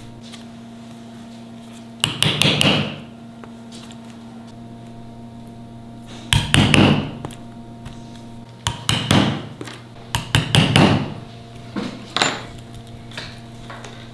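Hammer tapping on leather in five short bursts of several quick strikes each, over a steady low workshop hum.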